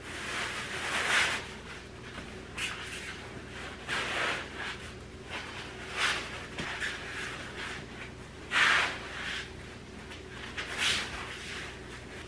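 Cotton sheet rustling in irregular strokes as it is pulled and slid over a foam mattress, the loudest strokes about a second in and near nine seconds in, over a faint steady hum.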